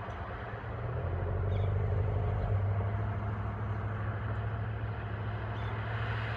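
Low, steady rumble of a motor vehicle running, swelling a little about a second in.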